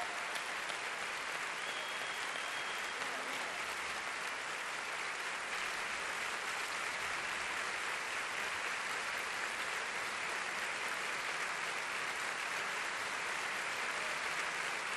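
Large concert audience applauding steadily, a dense even clapping with no music under it.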